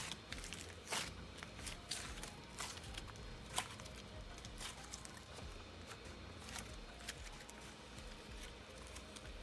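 Fingers pressing and working a dense, creamy butter slime, making faint, irregular sticky clicks and small pops.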